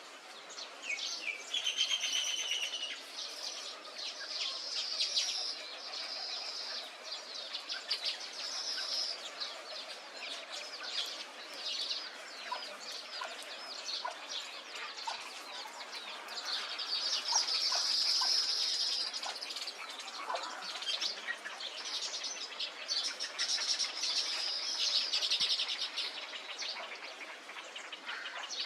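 A dense chorus of many birds calling at once: overlapping high-pitched calls and rapid chattering, continuous throughout.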